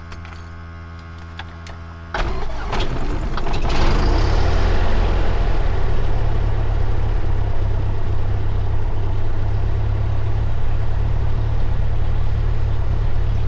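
Cessna 172's carbureted engine starting, heard from the cockpit: a steady hum until about two seconds in, then the starter turns the engine and it catches within about two seconds. It settles into a steady, deep-droning run. This is a cold start with the throttle pumped and cracked open and no primer used.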